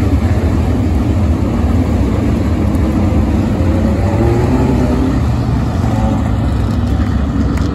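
A pack of USAC midget race cars running together around a dirt oval at pace speed, their engines making a loud, steady combined drone, with some engines rising in pitch about four seconds in.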